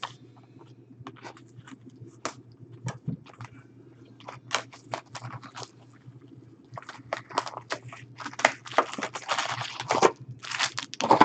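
Card-box packaging being handled and torn open: scattered clicks and rustles, then a few seconds of denser crinkling and tearing about seven seconds in, over a faint steady hum.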